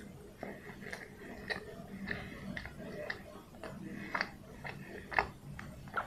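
A person biting into and chewing a soft steamed peanut bun (pau kacang), with irregular wet mouth clicks and smacks throughout, a few louder ones a little past the middle.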